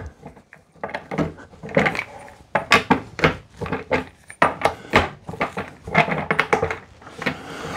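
Plastic twin-wheel casters being pushed into the sockets of a plastic five-star office chair base: repeated hard plastic clicks, knocks and rattles as each caster stem pops into place.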